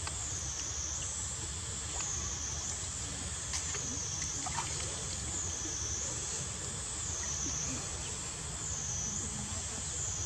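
Macaques paddling and splashing in a shallow pool of water. Behind it runs a steady hiss with a high tone that wavers up and down about every second and a half.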